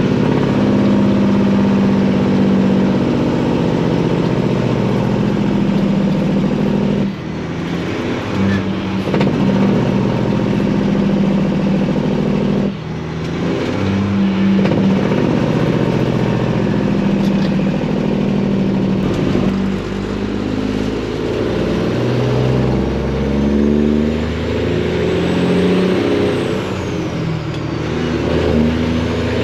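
Freightliner's Detroit diesel engine pulling hard through loud exhaust pipes, its pitch climbing. The engine sound drops briefly twice, about 7 and 13 seconds in, as between gear shifts.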